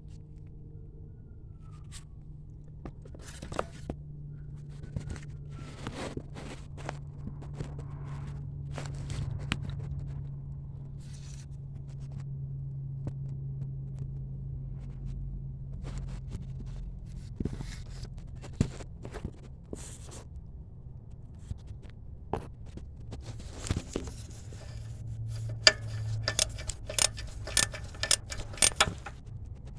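Hand tools on a car's rear wheel-bearing hub: scattered metal clicks, knocks and scrapes over a steady low hum. A quick run of sharp, ringing metal taps comes near the end.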